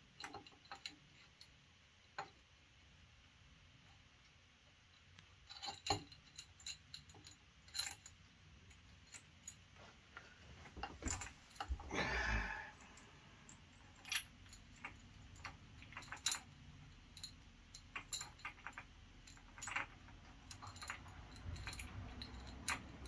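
Faint, scattered metallic clicks and clinks of hand tools and metal engine parts being handled while a timing chain and gears are fitted, growing busier after the first few seconds, with a brief scraping rattle about halfway through.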